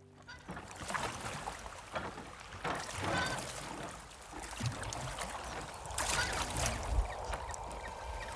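Oars of a small wooden rowboat dipping and pulling through calm sea water, a splashing stroke every second or two.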